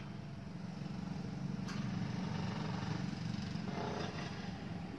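A motorcycle engine idling steadily, a low even rumble that grows a little louder about a second in.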